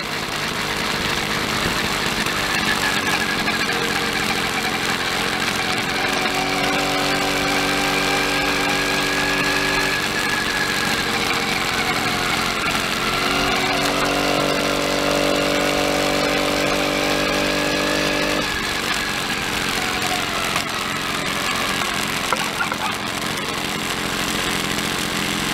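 Motorized bicycle's small engine running while riding, under a steady rush of wind and road noise. The engine note holds level twice for a few seconds, then eases off near the end as the bike slows.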